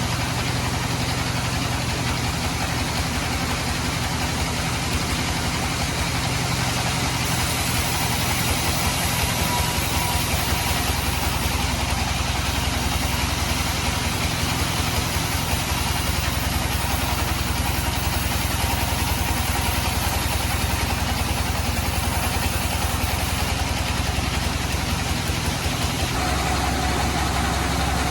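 Band sawmill running steadily, a continuous mechanical drone with a fine, even low rhythm.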